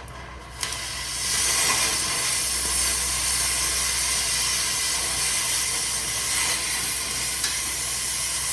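Cutting torch hissing steadily as it cuts through the end of an exhaust muffler bolt, starting with a sharp click under a second in.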